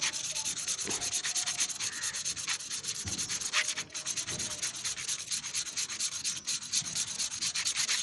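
Motorcycle rear brake pad rubbed by hand on sandpaper in quick, even back-and-forth strokes, several a second. The pad's rusty friction face is being sanded flat.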